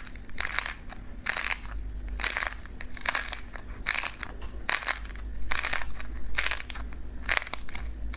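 Slime being squeezed and pressed by hand, giving a crisp, crunchy squish about twice a second.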